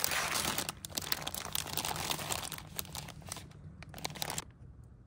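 Fabric of a heated vest rustling and crinkling as it is handled, with many small clicks, dying down about four and a half seconds in.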